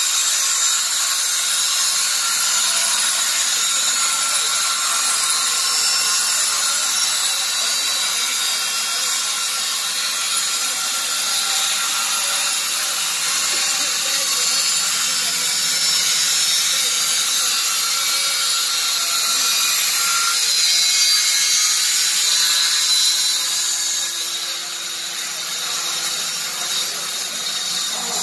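Puma 2019 Professional electric sawmill sawing through timber: a loud, steady high hiss of the blade in the wood over the hum of its motors. About 24 seconds in the sawing noise eases a little and a lower hum comes through.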